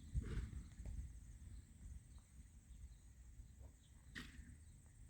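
Faint hoofbeats of a horse trotting on an arena surface, soft low thuds under a low rumble, with one sharp short click about four seconds in.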